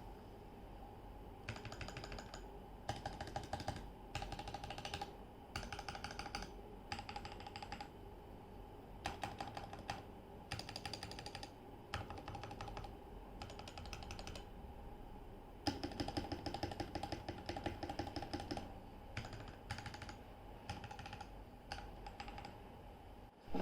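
Typing on a Keychron K6 mechanical keyboard with Gateron Red linear switches: bursts of rapid keystrokes a second or two long, separated by short pauses.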